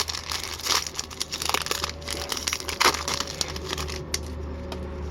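A hockey card pack's wrapper being torn open and crinkled by hand, an irregular run of crackles and rustles.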